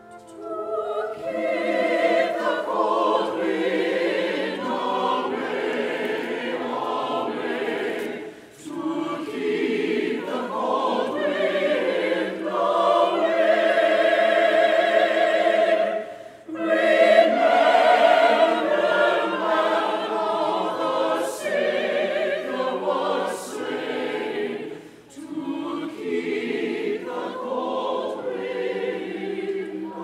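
Mixed-voice church choir singing a hymn anthem in long sustained phrases, with brief breaks between phrases about 8, 16 and 25 seconds in.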